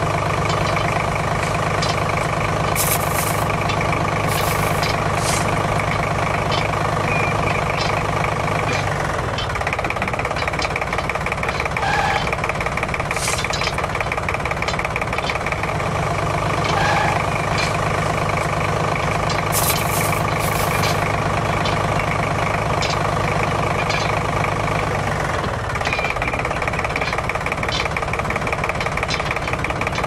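Steady excavator engine running sound. A deeper hum comes in for stretches of about nine seconds, twice, and light clicks sit over it.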